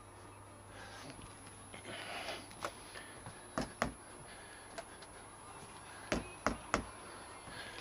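A spanner clicking and knocking against metal while the chain adjuster bolts on a Suzuki Hayabusa swingarm are turned: scattered sharp clicks, two close together and later three in quick succession, with a brief rustle of handling.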